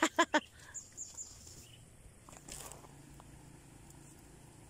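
A man's short whooping call right at the start, then quiet outdoor ambience with a few faint clicks and a soft rustle.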